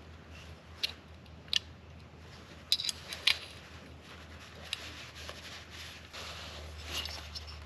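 Small metal parts of an AR-15 fire-control group being handled and fitted into the lower receiver: a handful of sharp, irregularly spaced metallic clicks and taps.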